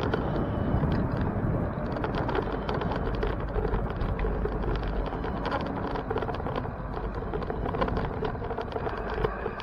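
Riding noise of a bicycle picked up by a camera on the bike or rider: a steady low rumble of wind and road, with frequent irregular rattling clicks.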